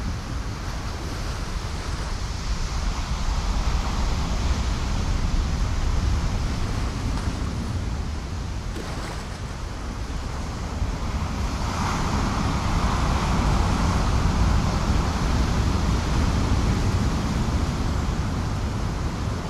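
Ocean surf washing below the cliffs, mixed with wind rumbling on the microphone; the wash swells louder past the middle.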